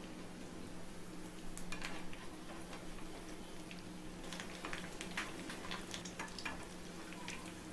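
Coated chicken cubes frying in hot oil in a pan: a steady sizzle with scattered crackles and ticks, most frequent in the middle stretch.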